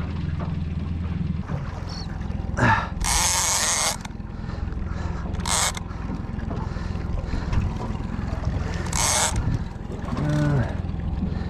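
Fishing reel at work against a hooked school bluefin tuna: the reel mechanism clicks, and three short bursts of noise come about three, five and nine seconds in as line is worked. Under it runs the steady low hum of the outboard motor.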